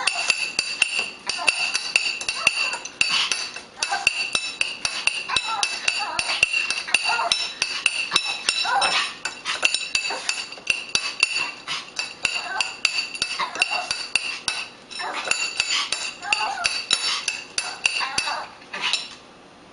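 Cutlery clinking and ringing against a dish, rapid and continuous, stopping near the end.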